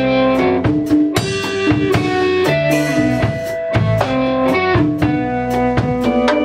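A live band playing instrumental music: guitar holding melodic notes that step from one pitch to the next, over a steady drum kit beat.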